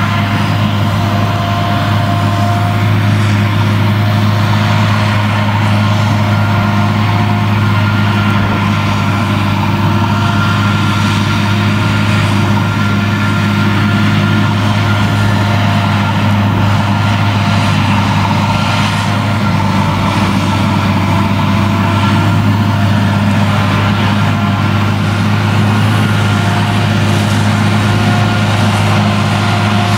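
Claas Jaguar 970 self-propelled forage harvester running under load, cutting and chopping standing triticale with its Direct Disc header and blowing it into a trailer, together with the engine of the Fendt tractor pulling that trailer alongside. A loud, steady drone with a deep hum and several steady whining tones over it.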